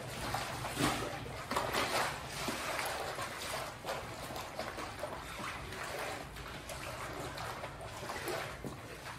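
Wet scrubbing of a moulded plastic car floor mat with a soapy microfibre cloth: irregular rubbing strokes with water sloshing and trickling.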